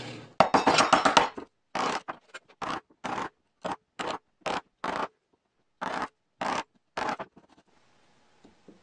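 Wood chisel paring out a shallow recess in a wooden board. First comes a quick run of rapid scraping cuts, then about a dozen short separate strokes roughly every half second, stopping about seven seconds in.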